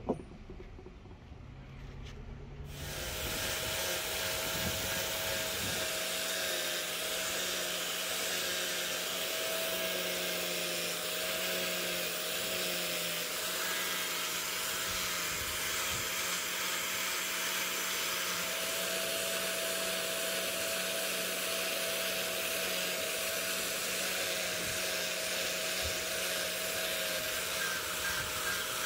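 Orbital sander with a round pad running and sanding a hardwood axe handle, starting about three seconds in; a steady motor whine over an even sanding hiss.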